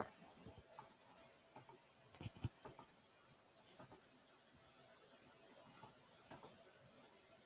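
Faint, sharp clicks over a quiet room, most of them in quick pairs. There are a few close together between about one and a half and three seconds in, another pair near four seconds and one more near six seconds, after a soft knock right at the start.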